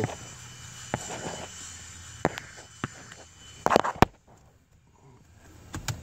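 Scattered sharp clicks and knocks from a prosthetic arm and its hook handling a seatbelt and its latch plate, with a quick cluster of louder clicks near the middle. The prosthetic arm is acting up as he works it.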